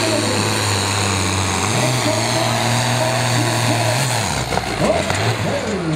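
Ford pulling tractor's diesel engine running flat out under load, dragging the weight sled, with black smoke from the stack. A little over four seconds in, the engine note drops and falls away as the pull comes to a stop.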